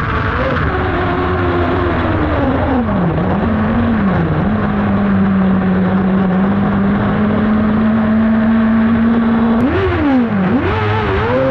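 Kart cross engine heard from on board: the revs fall away over the first few seconds with two short blips, then hold steady for about five seconds. Two quick blips of the throttle come near the end.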